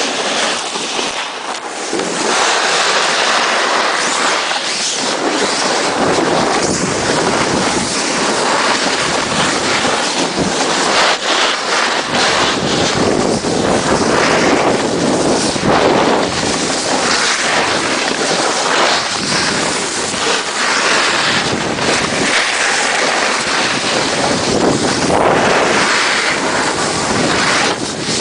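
Snowboard sliding and scraping over rough, hard-packed snow while riding downhill, with wind buffeting the microphone. A loud, continuous rushing noise.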